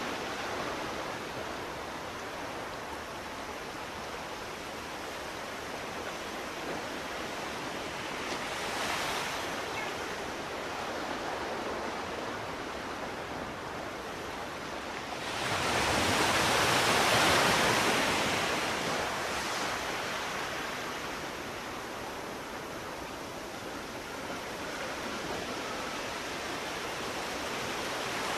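Sea waves washing on the shore, a steady surf hiss with one louder wave breaking about halfway through and fading over a few seconds.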